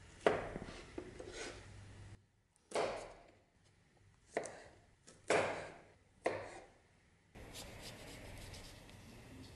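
Steel dagger blade slicing through food and striking a bamboo cutting board: a series of separate cuts, each a short sharp scrape that fades, over the first seven seconds, then quieter faint knife sounds near the end.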